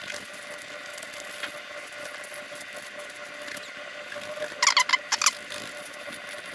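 A metal spoon scraping the scales off a crappie in quick strokes, a steady scratching patter, with a short run of loud, high squeaks a little past the middle.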